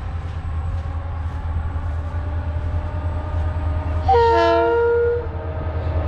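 Diesel freight locomotive approaching with a steady low engine rumble that slowly grows louder. About four seconds in it sounds its horn in one loud blast of about a second.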